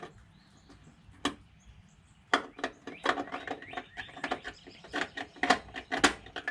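Irregular sharp clicks and taps of tool on sheet metal, one about a second in, then several a second from about two seconds in, while a switch hole is drilled in a car's wheel well.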